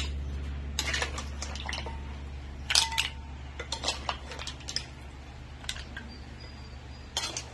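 A metal ladle clinks and scrapes against a pan and bowl while mussel soup is ladled out, in a few scattered clusters of short clinks. A steady low hum runs underneath.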